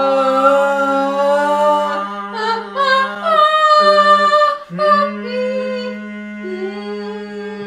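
Singing in long held notes that change pitch every second or so, over a steady low held note underneath; the opening of a musical number.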